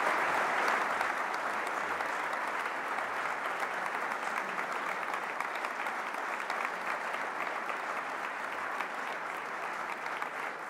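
A large audience applauding steadily, easing off a little toward the end.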